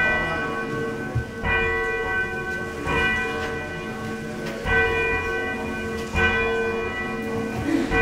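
Church bell rung by hand with a bell rope, swinging and striking about every one and a half seconds, each stroke ringing on into the next.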